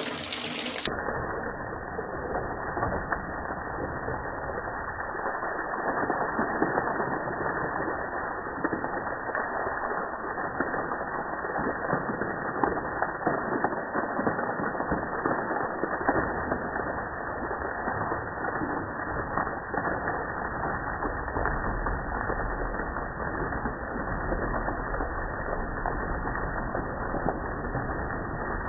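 A jet of water spraying onto a motorcycle's bodywork and the wet floor, heard as a steady, muffled, crackling hiss, slowed down as in a slow-motion recording. A low rumble grows under it in the last third.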